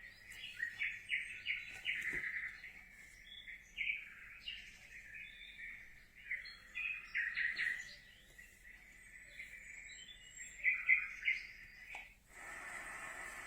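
Recorded birdsong played by a baby sound machine: many quick chirps and trills. About twelve seconds in, it switches suddenly to a steady hiss, another of its soothing sounds.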